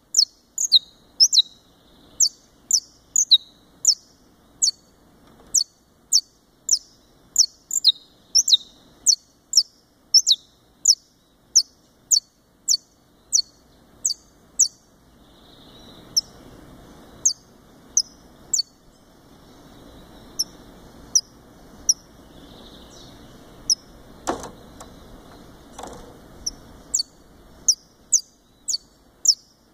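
Saffron finch (Sicalis flaveola brasiliensis) giving a long series of short, sharp chips that each drop in pitch, about two a second. The chips thin out midway and pick up again near the end. Two sharp knocks come about two-thirds of the way through, over a faint low rumble.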